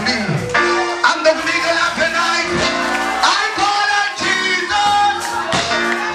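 Live gospel worship music: a singer on a microphone over a band of drum kit and keyboard, with steady bass notes and regular drum hits.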